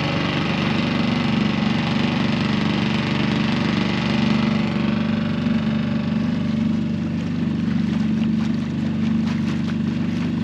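Small dinghy outboard motor running steadily, pushing the dinghy across the harbour at a constant speed.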